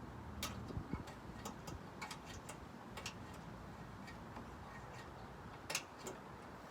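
Scattered, irregular light clicks and taps from a bendable steel rod probing through a truck's front grille for a broken hood latch release, with one sharper click a little under six seconds in.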